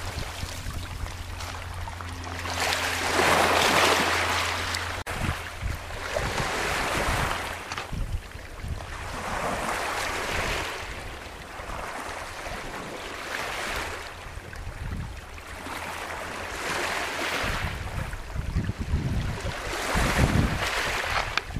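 Small Baltic Sea waves washing in and draining back over a pebble beach, each surge swelling and fading about every three to four seconds. Low wind rumble on the microphone near the end.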